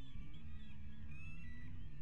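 Many birds calling at once, short thin rising and falling calls overlapping, over a steady low rumble.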